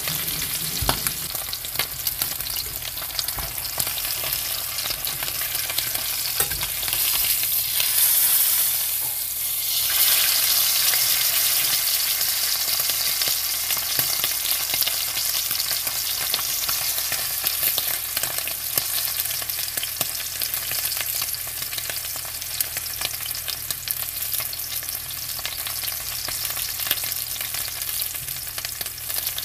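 Thick bone-in steak searing in olive oil in a stainless steel frying pan: a steady sizzle with scattered small pops of spitting fat, swelling louder for a few seconds about eight seconds in.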